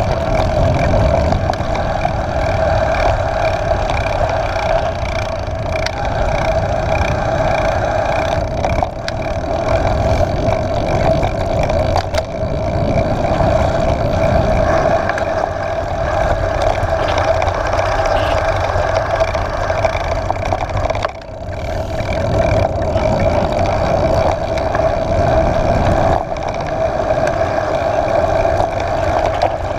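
Wind rushing over the camera microphone and mountain-bike tyres rolling on dirt and then on asphalt as the bike descends, with a steady hum running through it.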